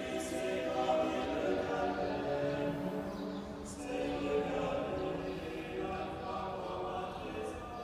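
A choir singing slow, sustained chant-like phrases, with long held notes.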